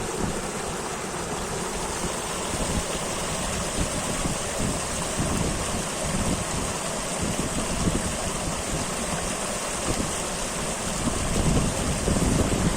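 Mountain river rushing steadily, a continuous even wash of flowing water.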